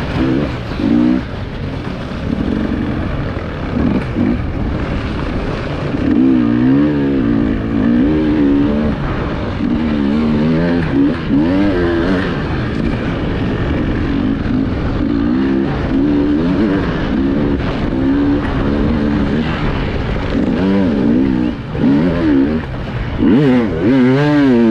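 Enduro motorcycle engine, heard from on the bike, revving up and down again and again as the throttle is worked on and off through rough terrain.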